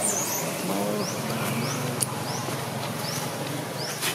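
A repeated high chirping call: short notes each rising in pitch, about two to three a second, over a steady outdoor background.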